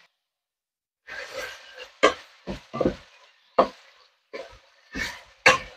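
Wooden spoon stirring pork in a frying pan: a string of irregular scrapes and knocks against the pan, roughly one every half second to a second, with some sizzling between. The first second is silent.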